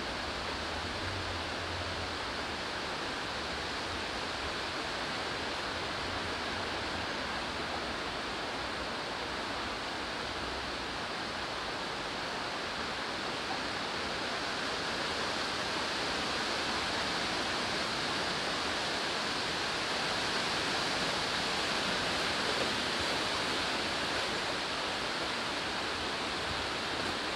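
Steady rushing of a running stream, a little louder in the second half.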